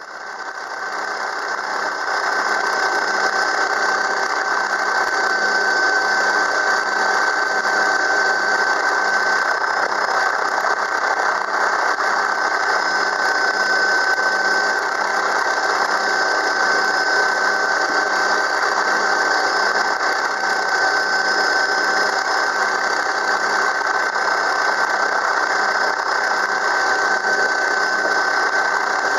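Steady engine drone with a constant high whine and a soft regular pulse underneath, from the aircraft filming from the air; it fades in over the first couple of seconds.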